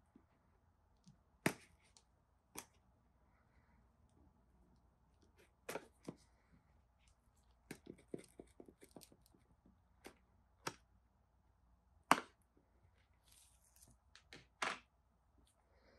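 A pointed metal tool cutting through the seal stickers of a cardboard phone box: scattered sharp clicks and taps with a quick run of small ticks about halfway through, and a soft rustle of the box being handled near the end.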